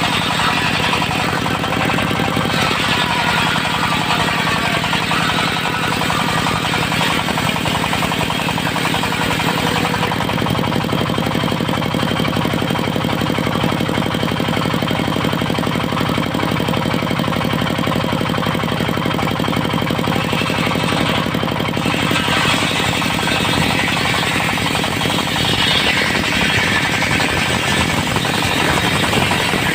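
Diesel engine of a portable circular sawmill running steadily, with a rapid knocking beat. A harsher, higher noise comes in from about twenty-two seconds in.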